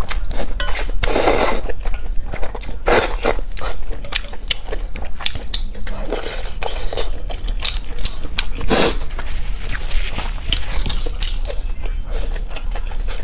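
Close-miked eating: a person biting and chewing food with many short, wet mouth clicks and a few longer noisy bursts.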